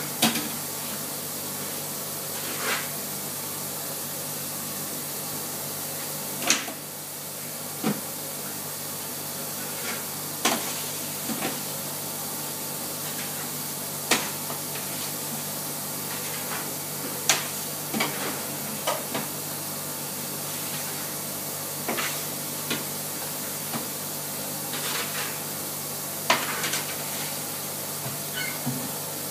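Steady hiss and low hum in a commercial bakehouse, broken every second or few by sharp metal knocks and clatters as bread trays and a loading peel are slid onto and off the deck oven's stone deck and rails.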